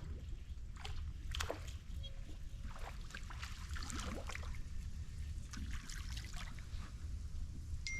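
Water sloshing and trickling against the side of a small boat, in irregular little splashes over a steady low rumble.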